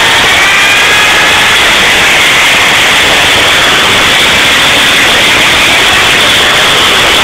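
Onboard sound from a camera riding on an RC car as it drives: a loud, harsh, distorted rush of motor, wind and ground noise. A motor whine falls in pitch over the first second or so.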